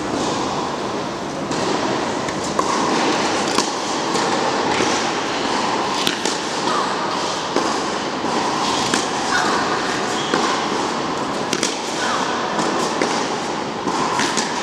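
Tennis rally on an indoor court: irregular sharp knocks of the ball on rackets and court, with a few short shoe squeaks, over a steady background of hall noise.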